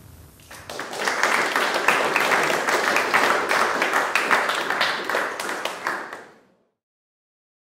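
Audience applauding. The clapping builds over the first second and cuts off suddenly about six seconds in.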